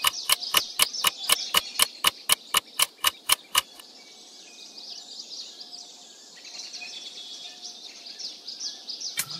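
A rapid run of sharp ticks, about five a second, that stops about three and a half seconds in, over faint high birds chirping that continue as a dawn ambience.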